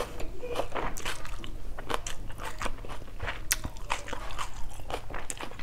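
Close-miked chewing of a mouthful of chicken salad with raw onion: irregular wet crunches and sharp mouth clicks.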